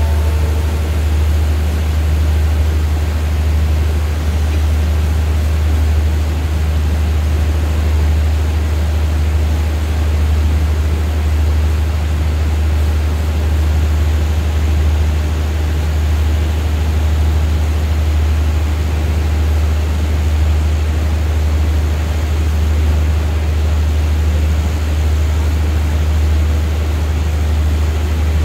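Steady, loud low diesel hum from a standing passenger train's engines idling, with an even hiss over it.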